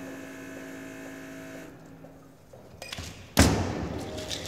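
Steel cocktail shaker: one loud thump about three and a half seconds in as it is closed up, ringing briefly, then ice starting to rattle inside as it is shaken near the end. Before that, a steady hum dies away about two seconds in.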